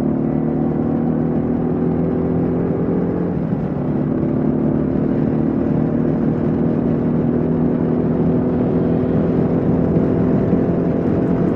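Kawasaki KLR 650's single-cylinder engine running steadily at highway cruising speed, with wind noise over the microphone. The engine note breaks briefly about three seconds in, then holds steady.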